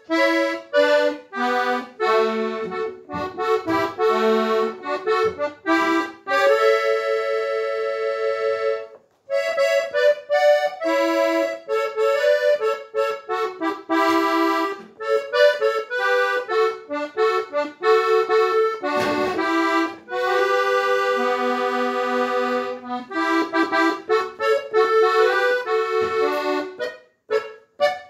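Accordion playing a melody in the key of D, mixing quick runs of notes with long held chords. There are brief breaks about 9 and 19 seconds in.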